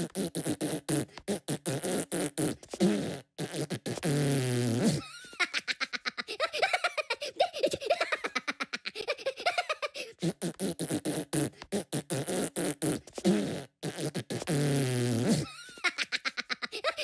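Cartoon Minion voice beatboxing with rapid mouth pops and raspberry noises, mixed with high-pitched squeaky gibberish and giggles. The same sequence plays again about ten seconds in.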